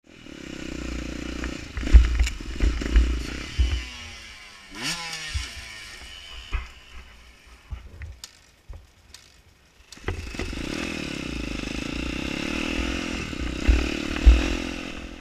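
Enduro dirt-bike engine running on a rough climb, with knocks and clatter from the bike over rocks and ground. The revs rise about four seconds in; the engine drops away with scattered clicks in the middle, then runs steadily again for the last few seconds.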